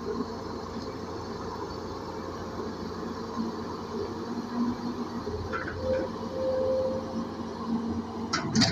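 Caterpillar E200B excavator's diesel engine running steadily, with a sharp metallic clank near the end.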